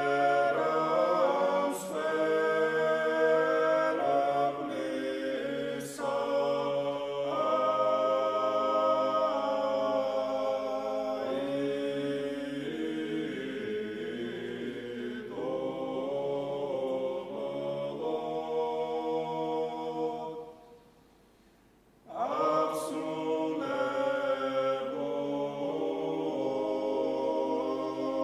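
Men's ensemble singing Georgian church chant a cappella, several parts holding sustained chords that change together. The singing breaks off for about a second and a half about two-thirds of the way through, then resumes.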